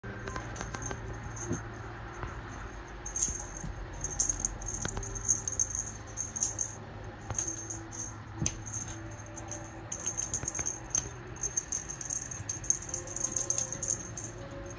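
Small bells on a ribbon cat toy jingling in irregular bursts as kittens bat and chase it, on and off, busiest near the end.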